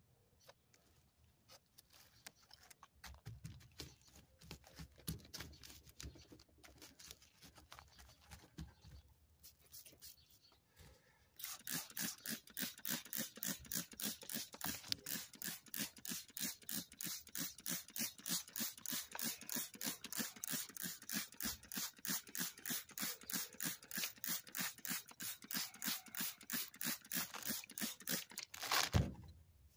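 A hand-trigger spray bottle squirted over and over, about three hissing sprays a second, misting water onto freshly planted seed-tray soil. Before it there are faint rustles of fingers working the potting soil, and near the end a louder clatter of handling.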